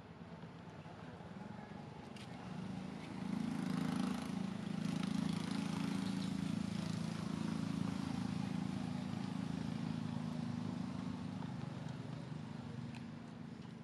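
A motor engine running: a steady low drone that swells about three seconds in and eases off near the end.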